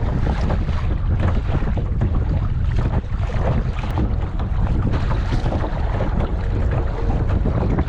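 Strong wind buffeting the microphone in a heavy, steady rumble, with choppy water splashing around a kayak.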